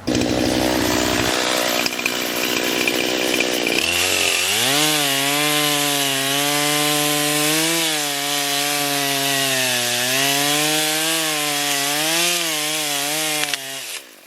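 Small gasoline engine cutting wood. It revs up about four seconds in and holds high, its pitch wavering under load, then cuts off near the end.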